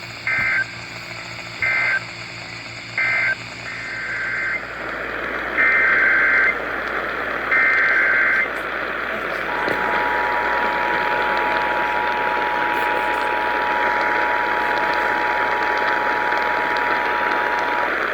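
Emergency Alert System signalling heard over a radio receiver. It begins with three short SAME data bursts of end-of-message code, then three SAME header bursts of about a second each of warbling digital data tones. About halfway in, the EAS two-tone attention signal (853 and 960 Hz together) comes in and holds steady for about eight seconds, over a hiss of radio static.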